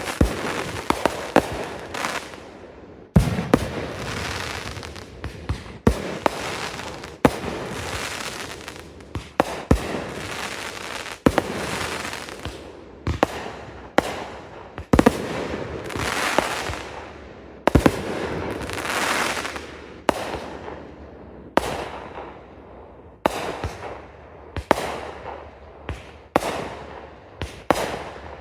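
Consumer fireworks going off in quick succession: sharp bangs roughly every one to two seconds, each trailed by a crackling hiss that fades away.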